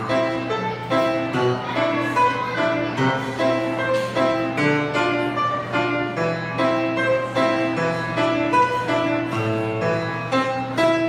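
Instrumental music: a quick line of separate notes played over a steady low bass note.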